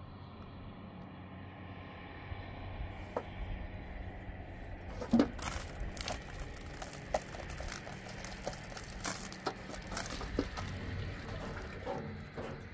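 Water from a hose filling a metal drum: a steady rush that builds about two seconds in, with scattered splashes and knocks over it.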